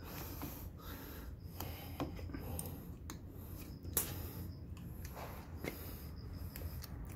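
Faint clicks and light scratching of a steel awl working the throttle cable into the heated grip's throttle housing on a scooter handlebar, with one sharper click about four seconds in, over a low steady hum.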